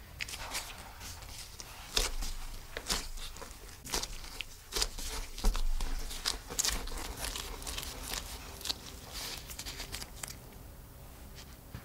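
A piece of yeast dough being pressed, folded and rolled into a ball under a gloved hand on a wooden tabletop: irregular sticky crackles and soft taps, thinning out near the end.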